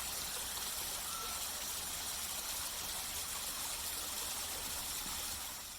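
A steady, even rushing noise with a low rumble underneath, running unchanged without any distinct events.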